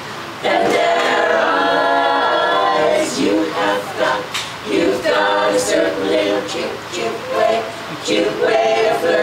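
A women's vocal group singing together in harmony. After a short lull, the voices come in about half a second in.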